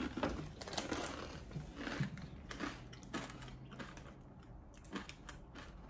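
Crunchy spicy corn chips being chewed, with quiet irregular crunches.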